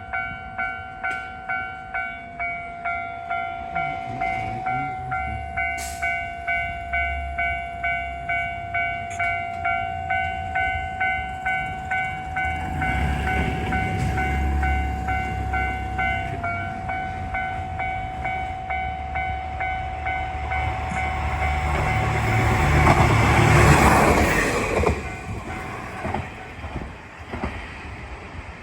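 Japanese level-crossing alarm ringing its repeated electronic bell tone a little under twice a second, while a JR Shikoku 1000 series diesel railcar approaches with a low rumble that builds. The train passes at its loudest a little after three quarters of the way through, then fades. The bell stops shortly before the train passes.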